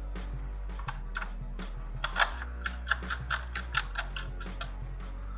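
Irregular sharp clicks and taps, about a dozen over three to four seconds, from small screws and tools at work on a laptop's plastic case as the locking screws are refitted.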